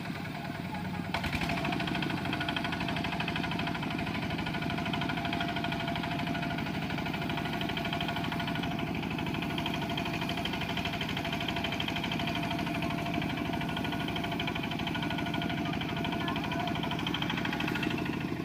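Kubota RT120 single-cylinder diesel engine on a two-wheel walking tractor, running steadily under load with the tractor stuck in mud. It gets louder about a second in, then holds a steady, even chugging.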